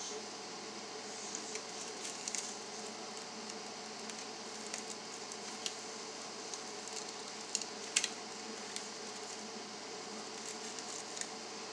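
Steady hiss and faint hum of room noise, with a few soft clicks and rustles scattered through it. The sharpest click comes about eight seconds in.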